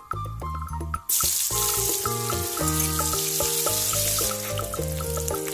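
Sliced onion hitting hot oil in a wok and sizzling. The sizzle starts suddenly about a second in, stays loud for about three seconds, then settles to a lighter sizzle with crackles. Background music plays throughout.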